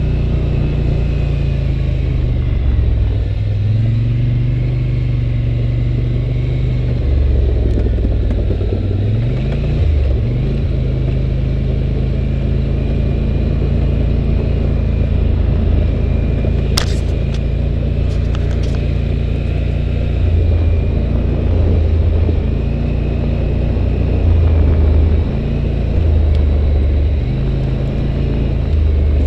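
2011 Polaris Sportsman 850 Touring ATV's twin-cylinder engine running while riding a dirt trail, heard from the machine itself, its pitch dipping and rising a few times as the throttle is eased and opened. A few short sharp clicks come a little past halfway.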